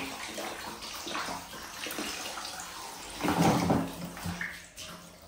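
Water splashing and sloshing in a bath as a baby is washed, with a louder burst a little over three seconds in.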